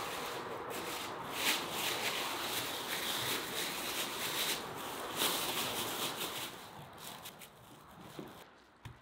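Thin plastic bag crinkling and rustling as fish pieces are shaken in it with a corn-meal coating, a dense crackle of many small rustles that fades out near the end.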